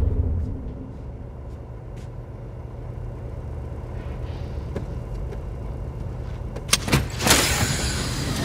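A low steady hum, then about seven seconds in a couple of sharp clicks and a longer sliding hiss as a hidden drawer in a bookshelf glides open.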